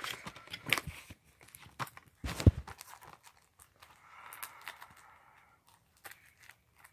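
Gift wrapping paper crinkling and rustling as it is handled and torn, with scattered light clicks and a single thump about two and a half seconds in. Softer rustling follows.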